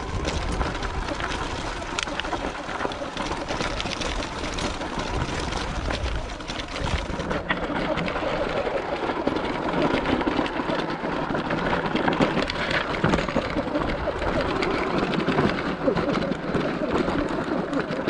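Sur Ron X electric dirt bike rolling slowly down a rocky trail: tyres crunching over loose rock and gravel, with a steady run of small knocks and clatter from the bike.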